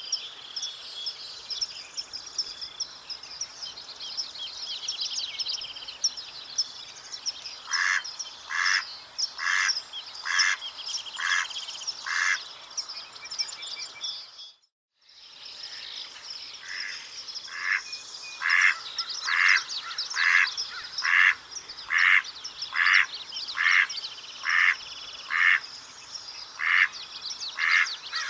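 Mallard quacking in long runs of evenly spaced quacks, about two a second, broken by a brief dropout about halfway. Small songbirds sing and chatter throughout.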